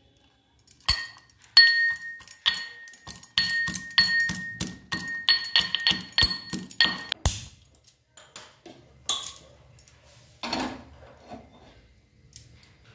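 A metal pestle pounding garlic cloves and a dried red chilli in a stainless steel mortar. The strikes come about two or three a second, each with a bright metallic ring, and stop about seven seconds in. A few lighter knocks and one clatter follow.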